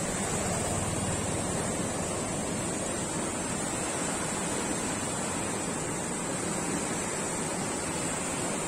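River in flood rushing past, a steady, even rush of water with no let-up.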